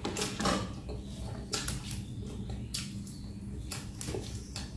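Close-up eating sounds: a person chewing, with a few short, sharp clicks and smacks scattered through, over a steady low hum.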